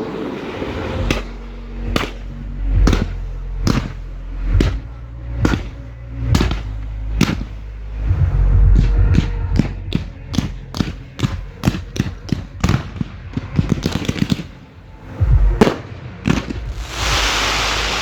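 Fireworks firing from close by: sharp bangs at about one a second, then a faster volley of many shots in quick succession, and near the end a dense crackling hiss. Music plays underneath.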